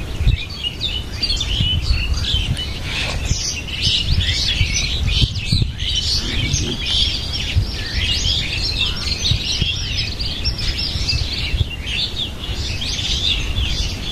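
Many small birds chirping and tweeting in a dense, continuous chorus, over a low rumble.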